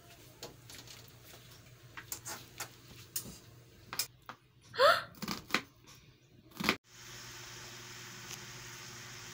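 Scattered light clicks and knocks of kitchen handling, with one short high cry about five seconds in. About seven seconds in, a steady sizzle starts as meat fries in bubbling oil in a wok.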